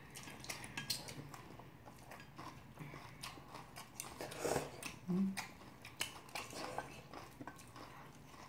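Many small clicks and scrapes of a metal spoon mixing yeolmu kimchi bibimbap in a stainless steel bowl, mixed with chewing sounds, and a brief louder noisy burst about halfway through.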